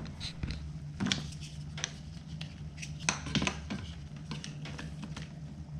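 A handful of short clicks and knocks as a dish of chicken is handled and put back into a microwave, over a steady low hum.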